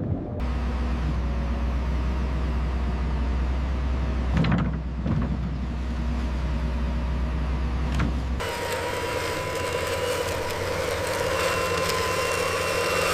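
Steady low machine hum that switches abruptly about eight seconds in to a noisier, higher machine sound with a faint whine.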